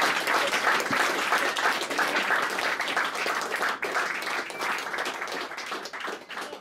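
Small audience applauding, many hands clapping at once, the applause slowly dying down.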